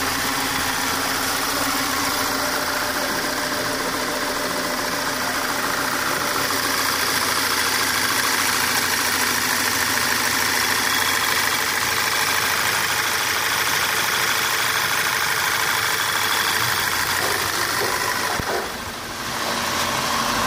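Volkswagen Tiguan 2.0-litre petrol four-cylinder turbo engine idling steadily, heard up close in the open engine bay.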